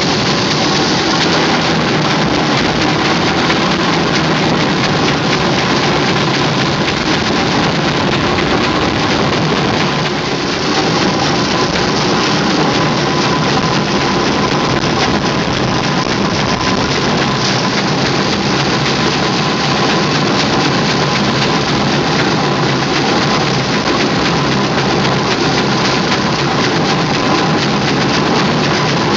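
Steam ploughing engine running with a loud, steady hiss that does not let up, a faint steady tone underneath.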